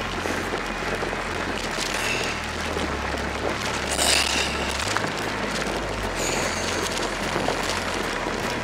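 Wind buffeting the microphone and fat bike tyres rolling and crunching over a gravel dirt road while an electric bike rides along, with a brief louder gust of wind noise about four seconds in.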